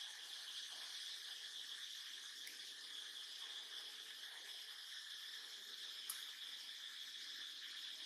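Steady, high-pitched chorus of insects trilling without a break, with one short click about six seconds in.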